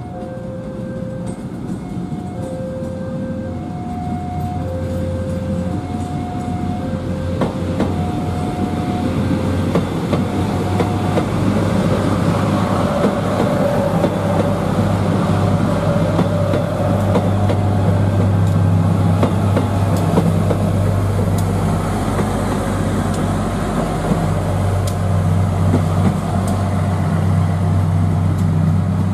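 Diesel multiple-unit trains running past on the station tracks: a steady low diesel drone with wheel and rail noise that grows louder after about ten seconds. Over the first ten seconds or so, a two-note tone alternates high and low about once a second.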